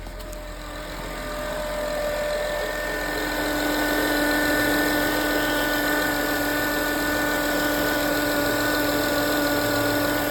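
A 2010 Honda Accord engine idling, with a steady, high-ish pitched whirring from the alternator area. The whirr grows louder over the first few seconds, then holds steady. The owner links it to the battery warning light staying on.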